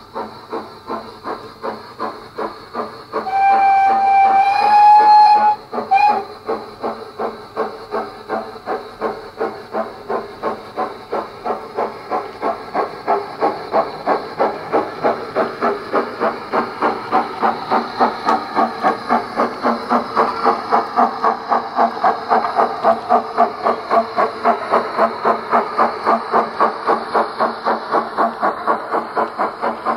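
Wheeltappers DCC sound decoder in a Bachmann 9F model, playing steam exhaust beats through a megabass speaker in the tender. A long whistle sounds about three seconds in, followed by a short toot. The beats then grow louder and quicker as the locomotive approaches.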